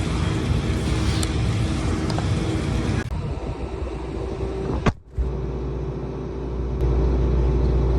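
A vehicle engine running steadily with a low rumble. The sound changes abruptly about three seconds in and drops out briefly near five seconds, where the footage is cut.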